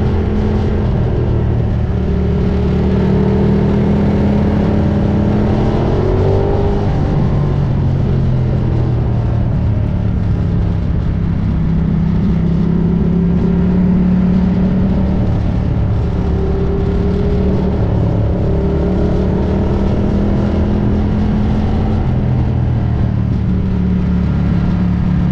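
Ducati Diavel motorcycle engine running under way at fairly steady revs. Its note rises and falls gently with the throttle, with a smooth climb in pitch about six seconds in.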